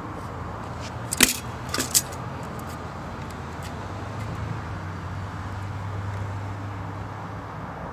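A few sharp metallic clicks from handling a tape measure against the steel top of a stopped table saw, one just over a second in and a short cluster near two seconds, over a steady low hum.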